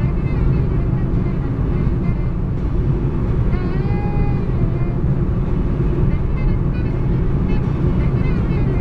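Steady low road and engine drone inside a car cruising at highway speed, with faint music over it.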